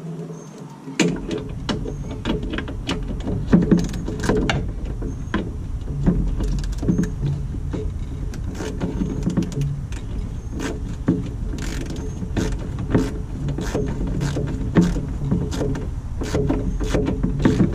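Hand tools and metal parts clicking and knocking in a Jeep TJ's engine bay as the washer reservoir's bolts are fitted and tightened. A steady low rumble runs under it from about a second in.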